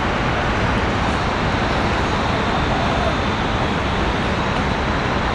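Steady, even city road-traffic noise with no single vehicle standing out.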